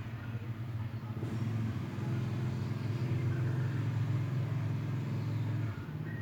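Low, steady motor rumble that grows louder about a second in and eases off shortly before the end.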